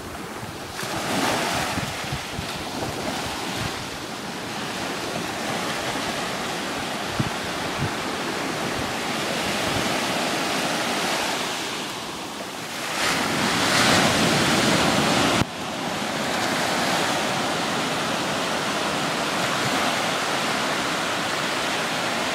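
Small ocean waves breaking and washing up over the sand at the water's edge, a continuous surf hiss with wind buffeting the microphone. The wash swells loudest about thirteen to fifteen seconds in, then drops suddenly.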